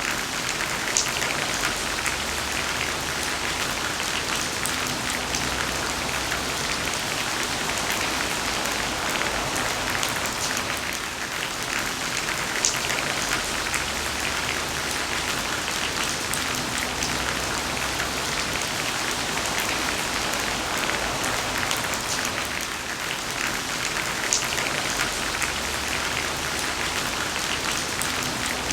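Steady rain falling on a surface: a dense, even hiss with many sharp drop clicks through it.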